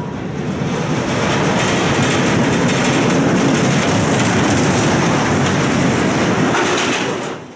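A Togo Ultra Twister roller coaster train running along the steel track overhead, a loud, steady rattle that grows louder about a second in and cuts off sharply at the end.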